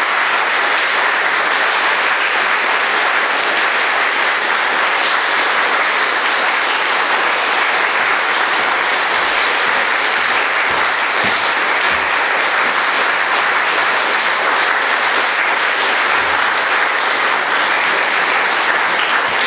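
An audience applauding steadily in a hall at the end of a talk.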